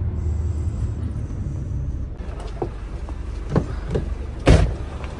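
Coach engine running as a steady low rumble heard inside the cabin. After about two seconds come a few short knocks, and one loud thump near the end.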